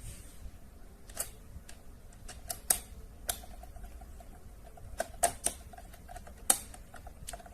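Irregular sharp clicks and taps of hard objects being handled, a dozen or so, uneven in spacing and strength. The loudest come near the middle and toward the end.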